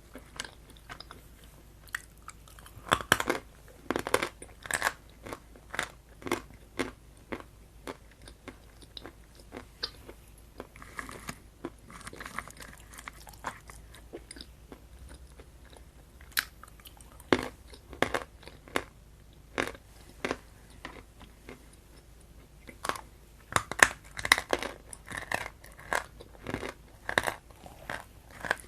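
A person chewing and biting food close to the microphone, with sharp crunching clicks coming in clusters, busiest a few seconds in and again near the end.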